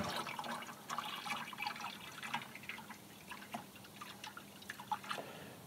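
Water from a garden hose splashing and trickling into a plastic watering can in small, irregular splashes: the first water coming through from the pump.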